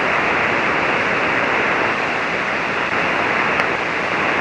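Steady hiss of static from an HF ham radio receiver on single sideband, cut off above about 3 kHz by the receiver's filter. No voice comes through the noise: the calling station is not being copied.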